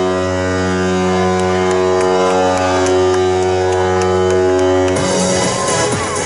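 A loud, steady, low horn-like drone that holds one pitch, then gives way about five seconds in to electronic dance music with a beat.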